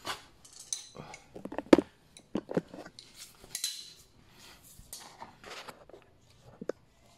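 Hand tools and small hard objects clinking and clattering as they are picked through, an irregular run of clicks, knocks and short rattles with one sharper knock about two seconds in.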